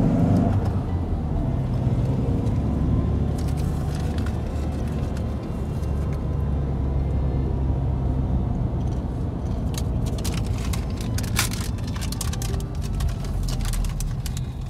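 Car driving, heard from inside the cabin: a steady low rumble of engine and road noise, with a scatter of sharp clicks in the second half.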